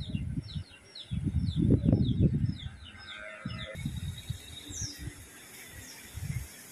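Small bird chirping a quick series of short falling notes, about three a second, then a few single higher falling calls later on, over irregular low rumbles on the microphone.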